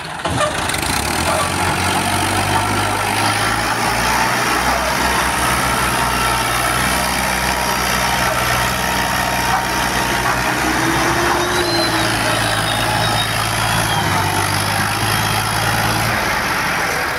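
Diesel tractor engines running hard under heavy load, a steady low drone, as the Al-Ghazi tractor strains to haul a loaded sugarcane trolley. The sound changes about 16 seconds in.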